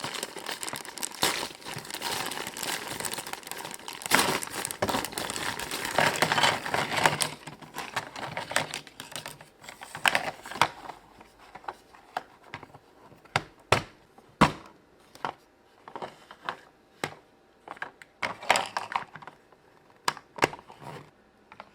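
Crinkling of plastic packaging for about the first seven seconds, then a series of separate sharp clicks and taps as plastic toy castle pieces are snapped together.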